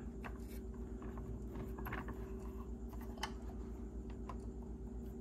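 Scattered light clicks and taps of small hand tools on a circuit board being worked on, a handful over a few seconds, over a steady low electrical hum.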